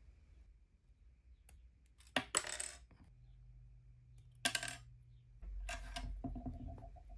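Side cutters snipping plastic model-kit parts off the sprue, and small plastic parts clicking as they are handled: three short bursts of sharp clicks about two seconds apart.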